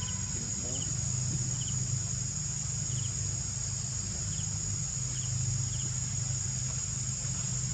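Steady high-pitched insect chorus from the forest, with short faint chirps repeating about once a second and a low steady hum underneath.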